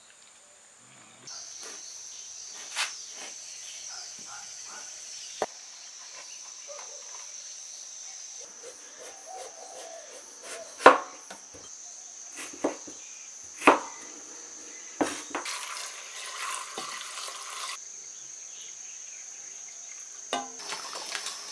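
A cleaver chopping winter melon on a wooden cutting board: sharp single knocks a second or two apart, over a steady high-pitched insect drone.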